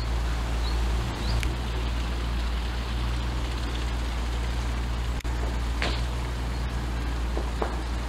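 Steady low rumble of distant road traffic, with a few short, faint bird calls over it.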